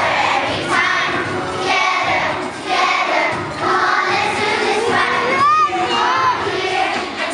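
A large group of young children singing together loudly over backing music, with some children shouting along.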